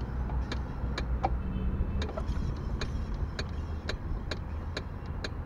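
Scooter front wheel being turned by hand to check the newly fitted brake pads: regular light ticks about twice a second over a steady low hum.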